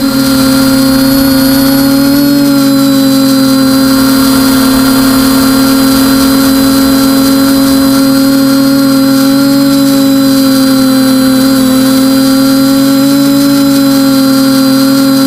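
TBS Discovery quadcopter's brushless NTM motors and propellers humming steadily in flight, heard close up from the camera on its own frame. The pitch dips and rises slightly a couple of times as it banks and settles into a hover.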